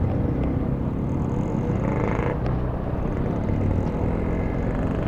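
A motorcycle on the move: steady engine and road noise with a low wind rumble on the microphone.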